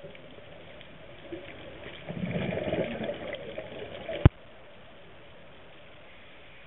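Scuba diver's exhaled breath bubbling out of the regulator underwater: a gush of bubbles lasting about a second and a half, starting about two seconds in. A single sharp click follows about a second later.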